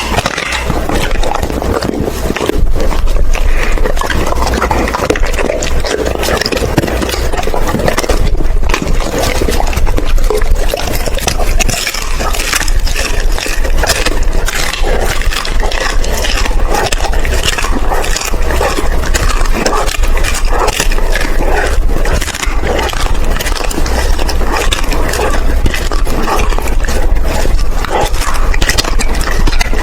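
A Doberman chewing raw food up close: continuous crunching and gnawing, broken by many short sharp cracks.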